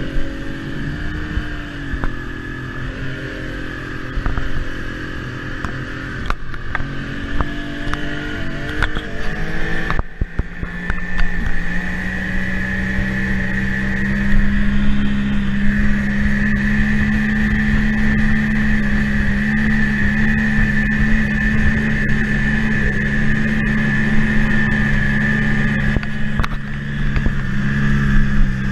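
Evinrude 150 V6 two-stroke outboard running at speed close up, with the rush of the wake and spray. Its note wavers for the first ten seconds, dips briefly, then holds a steady, louder drone for the rest of the time.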